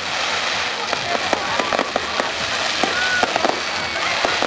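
Fireworks going off: a dense, continuous crackling of many sharp pops, which cuts off abruptly at the end.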